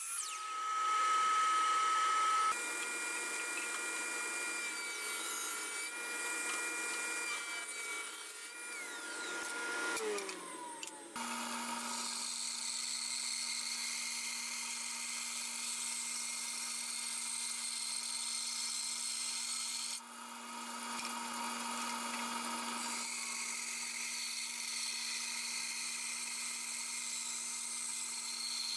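A Hitachi sliding compound miter saw runs with a steady high whine while cutting a dark hardwood board, then winds down, its pitch falling, about ten seconds in. Then a bandsaw runs with a steady low hum while a board is fed through it along the fence, with a brief dip in level about twenty seconds in.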